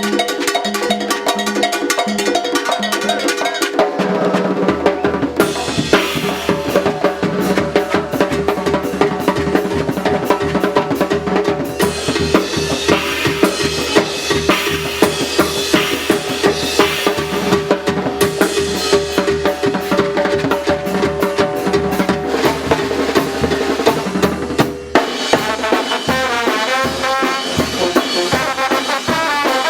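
Brass band playing a muertero carnival rhythm, with the drums to the fore: snare, bass drum and congas under held band tones. There is a brief break near the end, after which the rhythm changes.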